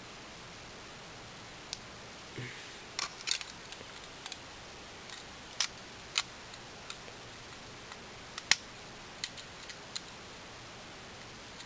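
Plastic Lego Bionicle pieces clicking and snapping as they are fitted together: scattered sharp clicks over a steady low hiss, the loudest about eight and a half seconds in.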